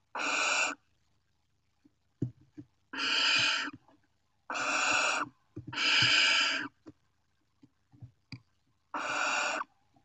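Barn owls in a nest box giving five long, harsh hissing calls, the snoring food-begging hiss of owlets, with a rodent being passed around. Small knocks and scratches of the birds moving in the nest fall between the calls.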